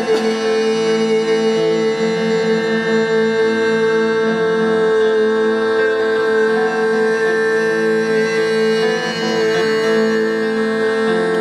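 Live instrumental music: an electric saz played through effects over a steady, unbroken drone, with reedy, sustained tones.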